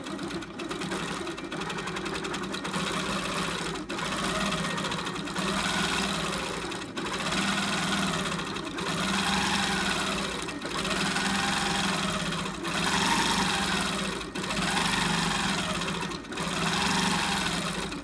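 Free-motion quilting machine stitching nonstop, its needle running fast and steady. The sewing speed rises and falls in waves about every two seconds as the back-and-forth coil lines are sewn.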